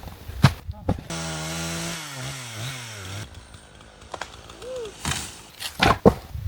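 Chainsaw engine running for about two seconds, its pitch dropping and wavering, between sharp knocks of wood: one about half a second in and several near the end.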